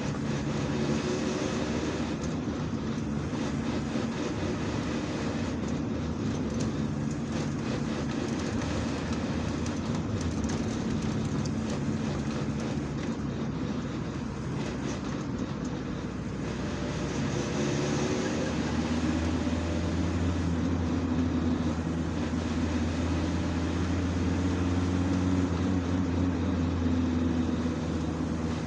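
Gearbox of a 1995 Volkswagen T4 van with the 2.4 litre five-cylinder diesel, running under load while driving, heard over the engine. The pitch rises at about two-thirds of the way through and the sound grows louder from then on, the noise that comes with load on the transmission.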